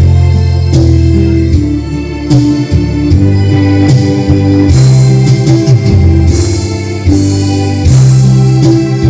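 Loud music with a heavy bass line and sustained keyboard-like notes, played through a Sakura AV-757Ub amplifier during a sound test.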